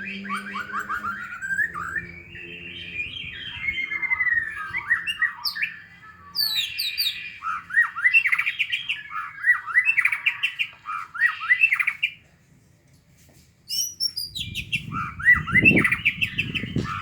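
White-rumped shama (murai batu) singing in fighting mode: rapid, varied phrases of sweeping whistles mixed with harsh squawking notes. The song breaks off for about two seconds near the middle, then resumes over a low rumbling, knocking noise near the end.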